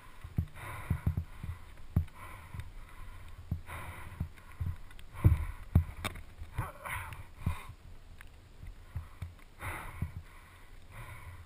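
Mountain bike descending a wet dirt trail: tyre noise over the ground with frequent irregular knocks and rattles as the bike hits bumps.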